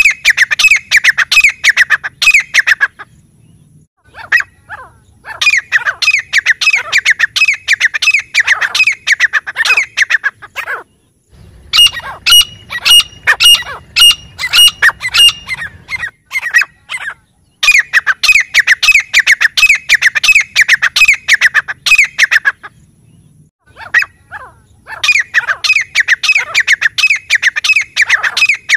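Grey francolin calling: loud, rapid series of repeated harsh notes in phrases a few seconds long, broken by short pauses. About halfway through comes a run of clearer, higher whistled notes.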